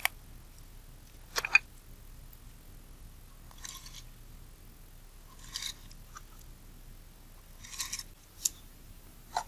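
Small parts of a Nikon Nikkor 28mm f/2.8D lens being handled and fitted during reassembly: a few sharp little clicks, including one about a second and a half in and two near the end, with three short scratchy rustles in between.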